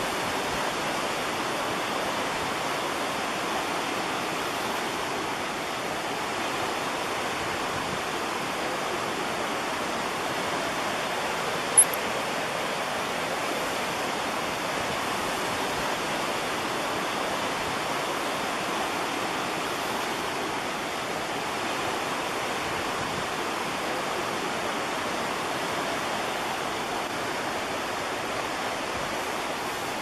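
Creek rushing over small rocky cascades: a steady, even water noise. A single sharp, high click about twelve seconds in.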